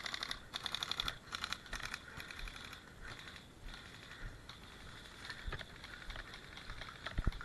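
Airsoft guns firing on full auto, rapid clicking rattles in several short bursts over the first two seconds or so, then only scattered clicks with two sharper ones near the end.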